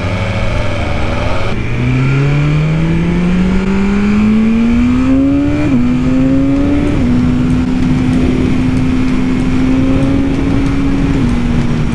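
2022 BMW S1000RR's inline-four engine accelerating hard through the gears. Its pitch climbs steadily for about four seconds, drops sharply at a quickshifter upshift, steps down again a second later, then holds steady with one more small drop near the end.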